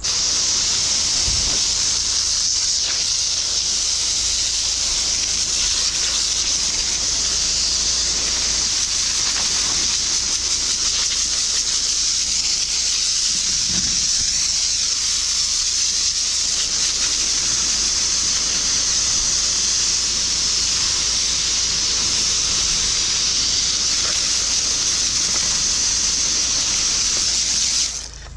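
High-pressure drain jetter spraying water to wash rubbish down the drain, a loud steady hiss that cuts off suddenly near the end.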